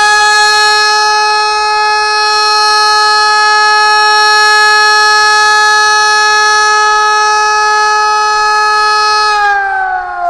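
Hörmann ECN 2400 electronic civil-defence siren sounding its steady test tone, loud and held at one pitch. About nine seconds in, the pitch begins to glide down as the tone winds down.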